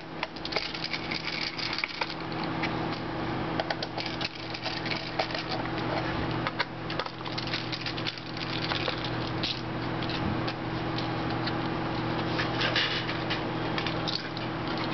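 Light clicks, taps and small rattles of a screwdriver and tiny screws against the aluminium bottom case of a PowerBook G4 as the RAM door screws are taken out, over a steady low hum.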